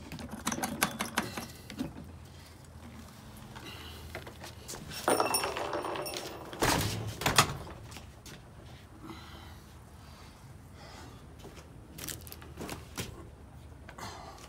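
Handling noise of a gas pressure washer being moved: scattered clicks and knocks, with a heavy thump about seven seconds in as the machine is set back down upright on its wheels on a wooden deck.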